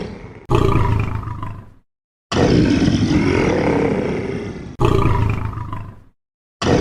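Lion roaring: about four loud roars in a row, each starting suddenly and trailing off, with short silent gaps between some of them.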